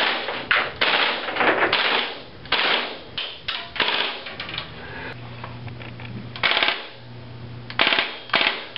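G&G CM16 gas blowback airsoft rifle firing a string of single shots, each a sharp crack as the gas cycles the bolt. The shots come in quick, irregular runs, with a pause of about a second twice in the later part.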